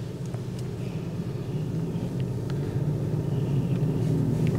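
A dangdut song starting on a car's 2-way audio system with subwoofer, heard mostly as deep bass, quiet and getting steadily louder.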